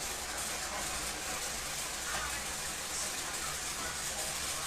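Steady background noise: an even hiss over a low hum, with no distinct events.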